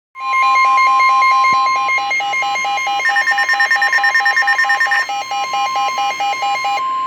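NOAA Weather Radio warning alarm tone: one long, steady, single-pitch tone that announces a new severe weather warning. Rapid electronic alarm beeping, about five beeps a second, is layered over it and stops shortly before the end.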